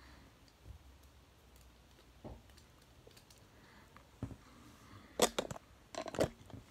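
Plastic action figure handled and posed by hand: a few soft knocks, then two quick clusters of sharper plastic clicks and taps about five and six seconds in.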